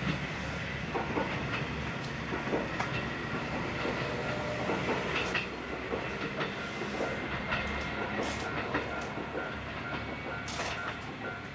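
Diesel railcar running away along the line, its engine and wheels on the rail joints clicking now and then, fading slowly.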